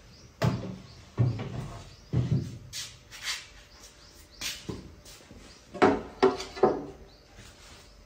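Refrigerator shelves and fittings being taken out of an open fridge, including a glass shelf. They clatter and knock against the fridge in a series of irregular clunks, with a quick run of three around six seconds in.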